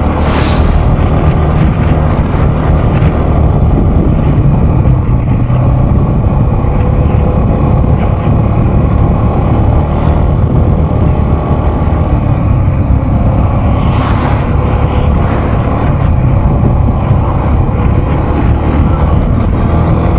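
Yamaha X-Max 250 scooter's single-cylinder four-stroke engine running steadily while cruising, heard from the rider's seat.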